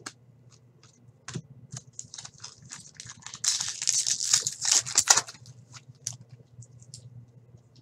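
Trading cards being flipped and handled by hand: a string of light clicks and card snaps, with a denser burst of rustling and crinkling from about three and a half to five seconds in.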